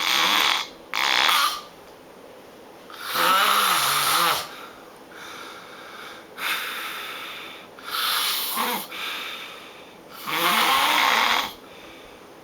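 A person snoring loudly and irregularly after heavy drinking: about six snores, two quick ones at the start and then one every two to three seconds. Some snores carry a low, wavering pitch that bends up and down.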